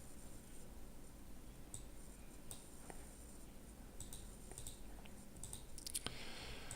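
Faint, irregular clicks over quiet room tone, a little more frequent near the end.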